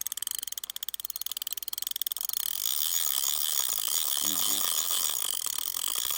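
Frogs calling at the lake: a fast rattling trill of pulses for the first couple of seconds, then a steady dense chorus of high calls. A voice is heard briefly about four seconds in.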